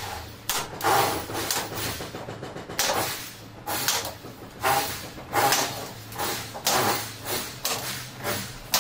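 Short hissing and scraping sounds, about one a second, as a perforated plastic corner bead is handled and pressed along the curved edge of a plasterboard ceiling.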